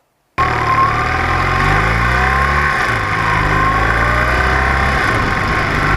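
Motor vehicle engine running with road and wind noise, cutting in abruptly about half a second in. The engine pitch climbs and then drops back a couple of times, as when accelerating and changing gear.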